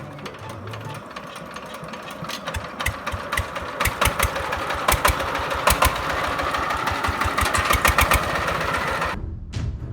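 Small hand-crank-start diesel engine running with a sharp, regular knocking beat that grows louder and quicker from about four seconds in, cut off abruptly near the end.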